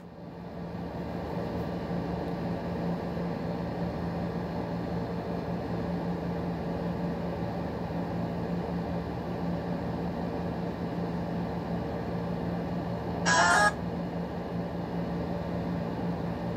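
Steady low machine hum with a constant tone and hiss, with a short, sharp burst of noise about thirteen seconds in.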